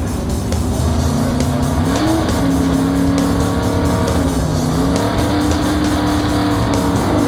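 Cartoon vehicle engine sound effect running steadily over background music, its pitch stepping up and down.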